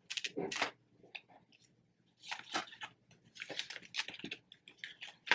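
Crinkling and rustling of packaging as an iPhone 12 mini box is opened by hand, in short irregular bursts with brief pauses.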